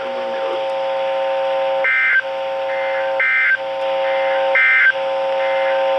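EAS end-of-message data bursts on NOAA Weather Radio: three short, shrill digital squawks about 1.3 seconds apart, each followed closely by a fainter repeat. They sound over a steady buzzing tone that drops out during each squawk, and they mark the end of the severe thunderstorm warning broadcast.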